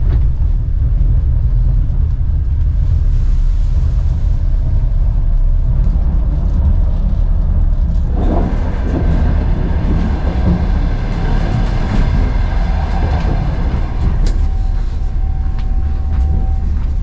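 Steady low rumble of a Ukrainian sleeper-train carriage in motion, with a few faint clicks. About halfway through, a high whine made of several steady pitches joins in and holds.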